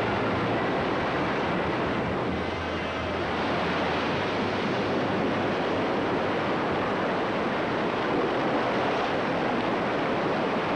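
Ocean surf breaking and churning against rocks: a steady, unbroken rush of white water.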